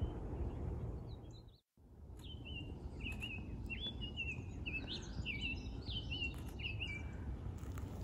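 Male summer tanager singing: a run of short, musical, whistle-like phrases that starts about two seconds in and repeats about twice a second, over a steady low rumble.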